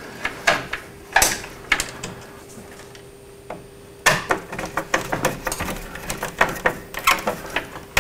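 A number 2 Robertson (square-drive) screwdriver clicks and scrapes on a terminal screw and the metal bar of an electrical sub-panel as a neutral wire is landed on the neutral bar. A few scattered clicks come first, then a busier run of clicks and rattles starts about four seconds in.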